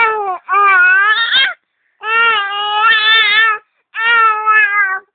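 Baby crying in four loud wails separated by short breaths, the third wail the longest; an irritated, fussing cry.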